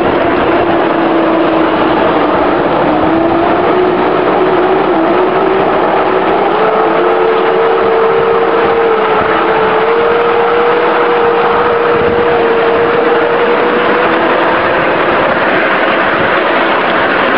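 5-inch gauge electric 0-4-0 shunter locomotive running along the track: a whine from its electric drive dips in pitch about two seconds in, then rises and holds, over a loud, steady rushing noise of the run.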